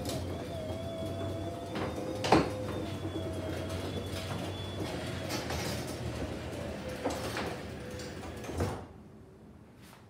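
Chamberlain garage door opener running to close a sectional garage door: a steady motor hum and whine broken by several clunks from the door, the loudest about two and a half seconds in. The noise stops a little before the end as the door comes down shut.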